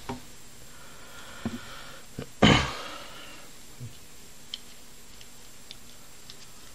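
Small clicks and taps of 3D-printed plastic puzzle pieces being handled and pressed onto the core of a cube puzzle, with one louder half-second rush of noise about two and a half seconds in.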